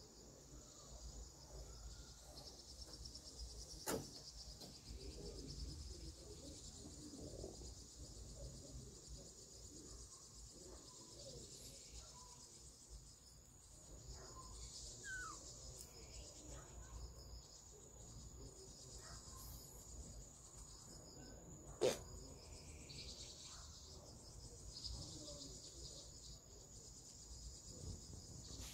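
Faint, steady high-pitched chirring of an insect chorus in the countryside, with a sharp click about four seconds in and a louder one about three-quarters of the way through.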